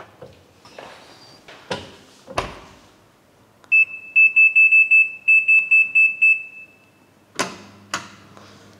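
Built-in electric oven's control panel beeping: a rapid run of short high beeps, about five a second, in two groups with a brief pause, as the oven is set to bake at 200 degrees for 10 minutes. A few sharp clicks and knocks come before the beeps and twice more after them.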